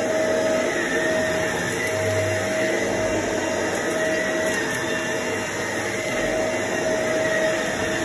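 Shark upright vacuum cleaner running steadily as its head is pushed across thick carpet, a constant motor whine over a rush of suction.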